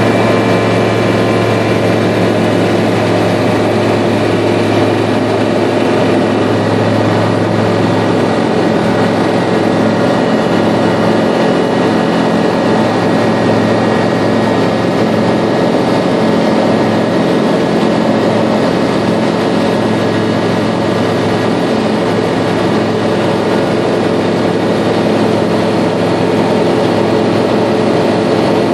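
Tecnam P96 Golf ultralight's piston engine and propeller at takeoff power, a loud, steady drone heard from inside the cockpit through the takeoff roll and the lift-off into the climb.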